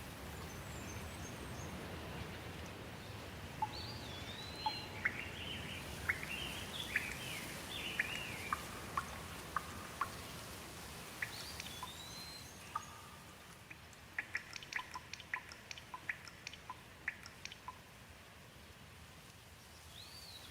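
Steady rain falling, with a bird calling in short chirps that rise and fall through the first half. In the second half a quick run of sharp ticks sounds over the rain.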